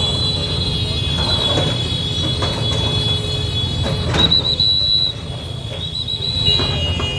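JCB backhoe loader's diesel engine running steadily while it demolishes brick shop fronts, with a few thuds and crashes of breaking masonry, the loudest about four seconds in. A steady high-pitched whine sits over it.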